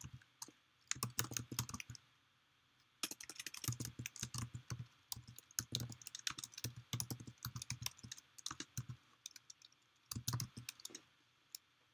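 Typing on a computer keyboard: runs of quick keystrokes, with a pause of about a second some two seconds in and a shorter pause near the end.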